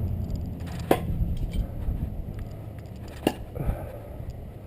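Steel throwing knives striking the target: two sharp knocks with a brief metallic ring, about a second in and about three seconds in, with a fainter one just after the second, over a steady low rumble.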